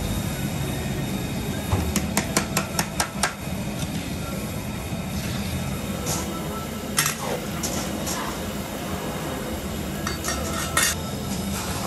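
Metal spatula clinking and scraping against a large iron wok while rice noodles are stirred in boiling water. There is a quick run of taps about two seconds in and single clinks later, over a steady background hiss.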